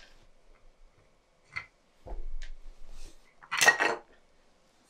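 A headlight projector's plastic reflector being worked loose from the LED module housing by hand. A few light clicks and a dull handling bump come first, then a short, loud clattering rattle of hard parts about three and a half seconds in.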